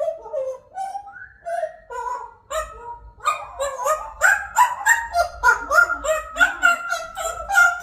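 African grey parrot calling in a run of short, pitched calls. They grow louder and quicker about three seconds in, settling to about three a second.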